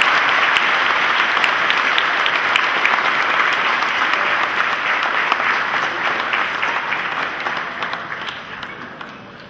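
A church congregation applauding. The applause is loud at first and dies away over the last few seconds.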